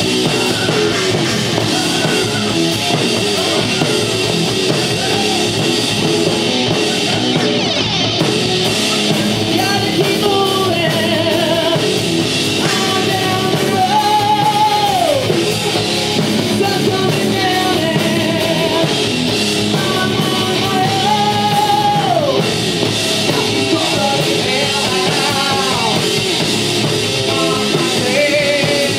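Live rock band playing: electric guitars and a drum kit under a male singer's voice. He holds long notes, two of which slide down at the end, about halfway through and again a few seconds later.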